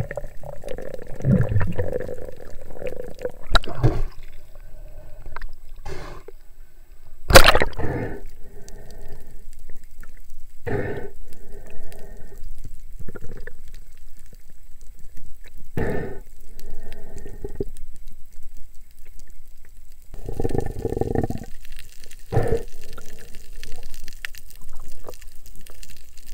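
Underwater bubbling and gurgling, as picked up by a diver's camera, coming in short bursts every few seconds, with one sharp loud crack about seven seconds in.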